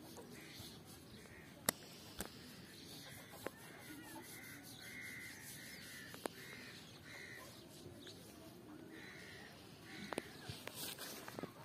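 Faint bird calls: a run of short calls repeated about twice a second, with a few sharp clicks scattered through and rustling near the end.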